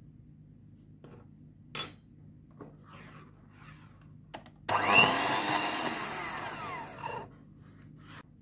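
Electric hand mixer running in a steel bowl for about two and a half seconds, starting abruptly and fading out, its pitch sliding as it beats cocoa powder into creamed butter and sugar. Before it come a couple of light clinks and soft scraping from the spoon adding the powder.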